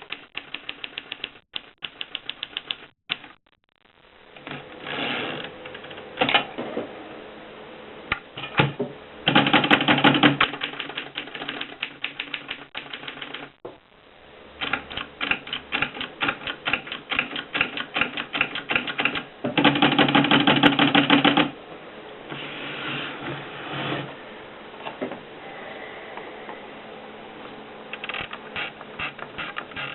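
1930s Mercedes Prima manual typewriter being typed on: runs of rapid mechanical key strikes with short pauses between them. Twice, at about a third and two-thirds of the way through, there is a louder, denser stretch of strikes lasting a second or two.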